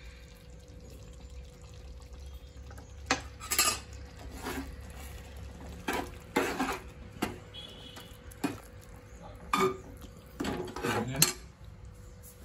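Steel spoon stirring thick chickpea curry in a metal pot, knocking and scraping against the pot's side about a dozen times.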